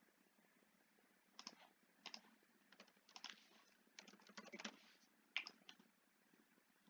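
Faint computer keyboard keystrokes and mouse clicks: a few separate clicks, then a quick run of keystrokes about four seconds in, and a couple of sharper clicks just after.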